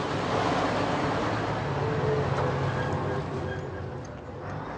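An old Mercedes-Benz diesel lorry driving past at close range. Its engine and tyre noise is loudest a second or two in, then fades away.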